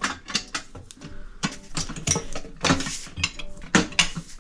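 Metal tire-changing tools clanking and clinking against a motorcycle wheel rim, an irregular run of sharp knocks as a tire bead is being worked off by hand.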